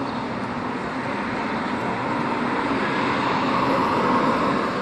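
A car driving past close by over steady road traffic noise. Its tyre and engine noise swells to a peak near the end.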